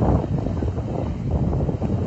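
Wind buffeting the microphone: a steady, fluttering rumble of noise with no clear tones or single knocks.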